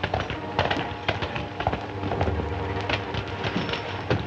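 Irregular knocking and clattering of boots and a horse's hooves on a dirt street, over a faint steady hum.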